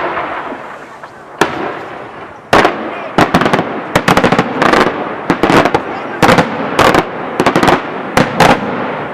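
Daytime aerial firework shells bursting overhead. Two single loud bangs come first, then from about two and a half seconds in a rapid, irregular string of loud reports, each trailing off in a short echo.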